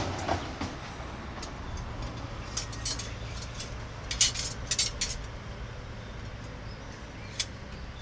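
Metal rods and cross-bars of a HITAKI fire-pit stand clinking and knocking together as its frame is taken apart: a few sharp clinks in small bunches, the last alone near the end, over a steady low rumble.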